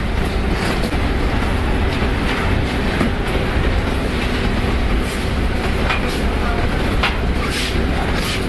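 A steady low mechanical rumble, with scattered rustles and snaps from cardboard cartons and plastic strapping being pulled open and handled.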